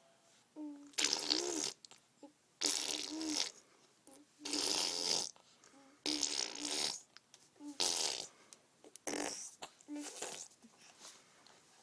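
A baby blowing raspberries, making fart noises with his mouth: about seven separate bursts, each half a second to a second long, several starting with a short hum of voice.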